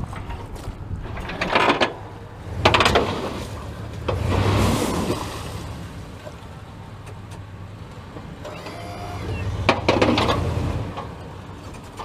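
Pickup truck's engine running steadily while its front-mounted snowplow pushes into shore ice, with several loud crunching, scraping bursts as the ice breaks up.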